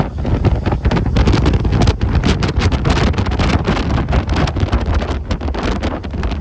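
Strong wind buffeting the microphone: a loud, heavy rumble with rapid irregular crackling gusts and no let-up.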